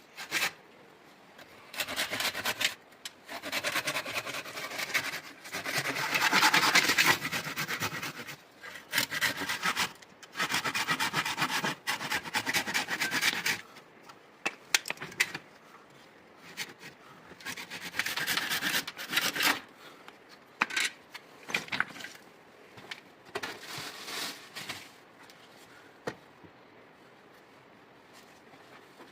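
A hand tool rasping on wood in bursts of one to three seconds with short pauses. In the second half these thin out to a few shorter scrapes and knocks.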